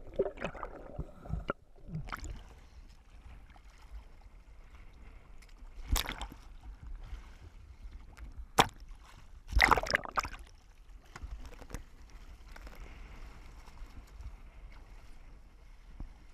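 Water splashing and sloshing around a camera in a waterproof housing as it dips under and breaks the surface, in several sudden loud bursts, the loudest about ten seconds in, with a low muffled hum in between.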